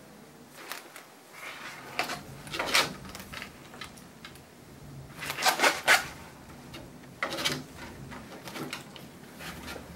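Short scratchy strokes of a hand-held grooming tool being pulled through a Scottish terrier's coat, a dozen or so at uneven intervals, the loudest a quick cluster about five to six seconds in.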